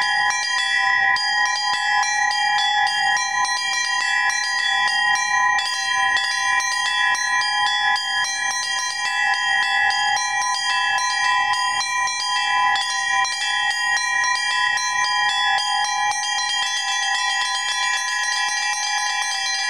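Small bells of a Russian Orthodox belfry rung in a fast rhythmic pattern of many quick strokes a second, mixing sixteenth and eighth notes with grace-note strokes, over a steady ringing tone from the bells beneath.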